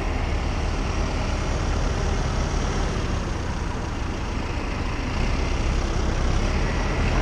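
Tractor diesel engine running steadily close by while its front loader lifts a round hay bale, with a heavy low rumble.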